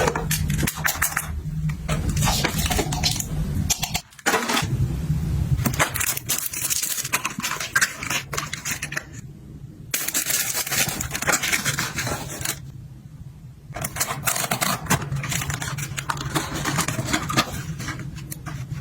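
Light clicks, taps and scrapes of small objects and packaging being handled and set down, in several short takes, over a low hum.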